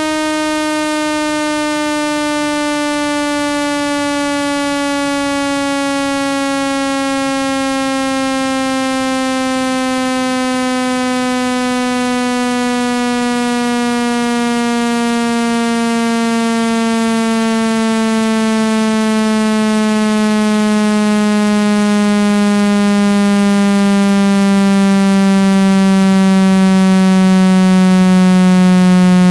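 Synthetic speaker-cleaning tone: a buzzy electronic tone rich in overtones that glides slowly and smoothly down in pitch and grows gradually louder. It is played to vibrate the speaker membrane and push out water and dust.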